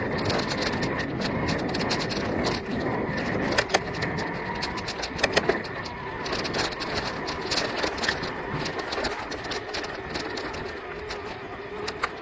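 Electric mountain bike ridden along a dirt forest trail: steady tyre noise over the ground, with the bike rattling and clicking over bumps and a few sharper knocks about three and a half and five seconds in.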